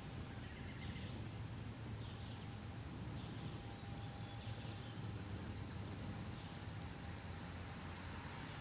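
Steady low outdoor background rumble with faint birds calling over it: a thin high note repeating about every two to three seconds, plus scattered chirps.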